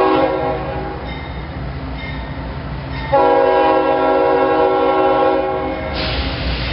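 Diesel freight locomotive's horn: a short blast, then a long blast of about two and a half seconds, over the low rumble of the approaching engine. Near the end the rush of the train grows louder as it draws close.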